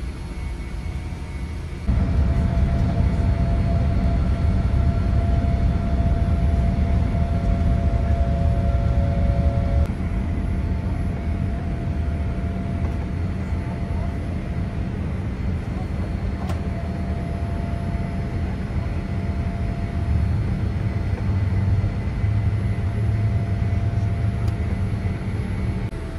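Boeing 787-8 jet engines at takeoff and climb power heard inside the cabin: a loud steady rumble with a thin whine above it. The level jumps up abruptly about two seconds in and drops back a step near ten seconds.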